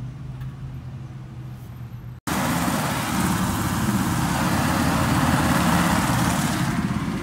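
Car driving: a low engine and cabin hum for about two seconds, then, after a sudden cut, a much louder, steady rush of road and traffic noise.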